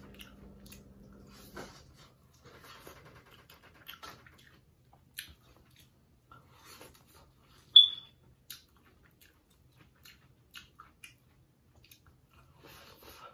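Close-up eating sounds: scattered wet chewing and mouth clicks as sauce-coated corn on the cob is bitten and chewed, with one sharp, high click a little before the eight-second mark, the loudest sound.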